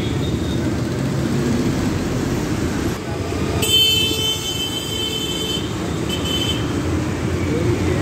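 Steady engine and road rumble heard from inside a moving city bus. A high-pitched vehicle horn honks for about two seconds from around three and a half seconds in, then gives a short second honk.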